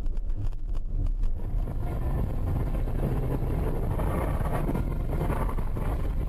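Steady low rumble of a car driving on snow-covered roads, engine and tyre noise as picked up by a dashcam inside the cabin, with some wind buffeting. The sound changes character about a second and a half in.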